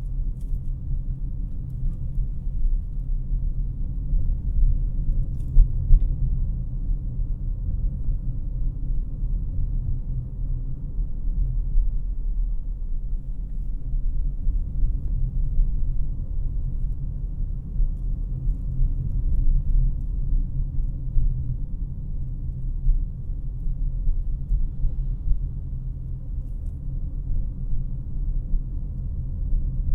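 Cabin noise of a 2018 Honda CR-V LX being driven: a steady low rumble of road, tyre and engine noise heard from the driver's seat.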